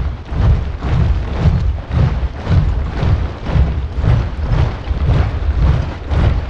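A large body of soldiers marching in step, boots striking the ground together in heavy thuds about twice a second.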